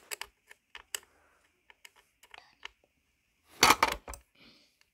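Small screwdriver clicking and scraping in a screw head set in a Nerf Stryfe blaster's plastic shell: scattered light ticks, then a louder quick rattle of clicks about three and a half seconds in.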